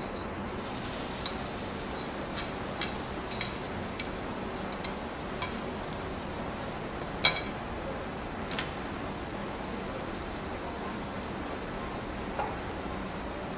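Diced vegetables sizzling on a hot flat griddle as they are tipped onto it, a steady hiss that starts about half a second in. Scattered sharp clinks of utensils against the griddle sound throughout, the loudest about seven seconds in.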